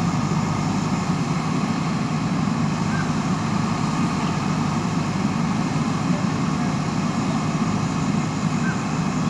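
Diesel engine of a JCB 3DX backhoe loader running steadily while the backhoe arm is worked.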